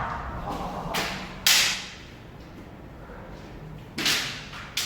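Bamboo shinai striking kendo armour: a few sharp cracks, the loudest about a second and a half and four seconds in, with lighter hits between.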